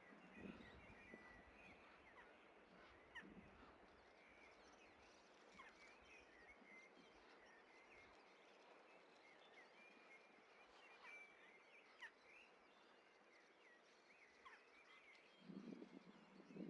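Faint outdoor background of small birds chirping, with a short burst of rapid bill-clattering from white storks at the nest about fifteen seconds in.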